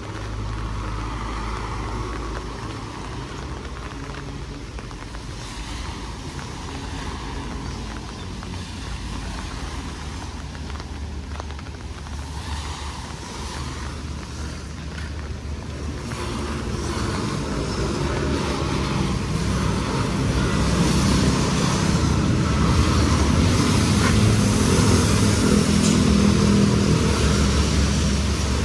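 Rain falling, with the low running sound of a motor vehicle's engine underneath that grows louder over the second half.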